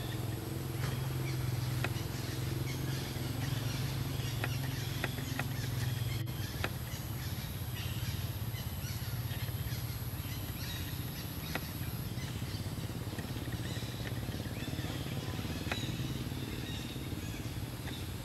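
Outdoor ambience: a steady low motor hum that weakens about halfway through, with scattered short bird chirps and faint clicks over it.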